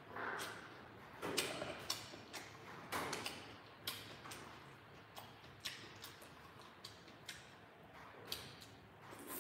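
A person eating noodle soup close to the microphone: chewing and lip smacks with irregular sharp clicks of mouth and chopsticks and spoon.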